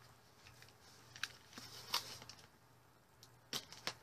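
Cardboard shipping box being handled and opened: a few short crackles and scrapes of cardboard and packing tape, two of them close together near the end.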